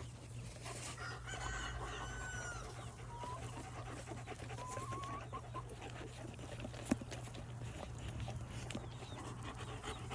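Chickens calling and clucking, with a few short pitched calls in the first half and a single sharp click near the middle.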